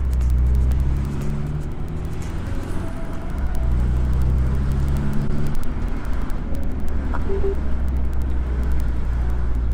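Acura Integra being driven, heard from inside the cabin: a low engine drone that shifts in pitch a few times, over tyre and road noise.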